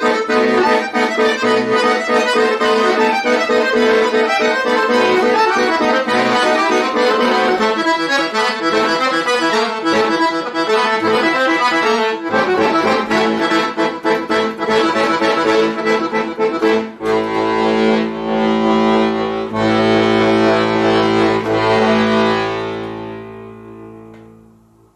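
Chromatic button accordion playing solo: a run of quick notes, then long held chords from about two-thirds of the way through, ending on a final chord that fades away near the end.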